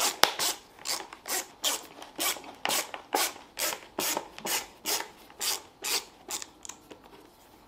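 Phillips screws being turned out of the car's interior trim panel with a hand screwdriver: a short rasping scrape with each twist, about two a second, growing fainter near the end.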